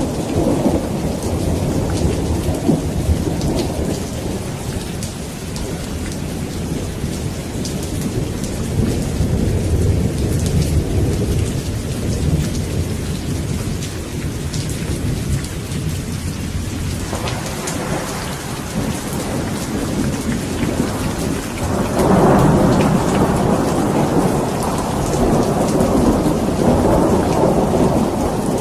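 Steady heavy rain falling, with rolling thunder rumbling underneath; a new roll of thunder begins about two-thirds of the way through and swells to the loudest point soon after.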